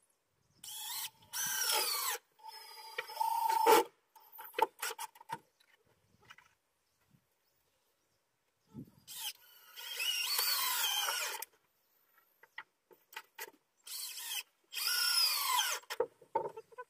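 Power drill driving screws into deck boards in four runs of a second or two each. Its motor whine falls in pitch as each screw bites in, with short knocks between the runs.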